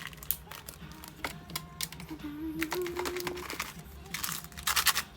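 Small plastic clicks and taps from handling packing materials, with a dense burst of crinkling near the end.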